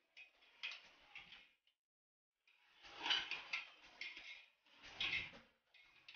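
Metal ladle scraping and clinking against the inside of an aluminium pressure cooker as spice powders are stirred into the masala, in three or four separate bouts of stirring.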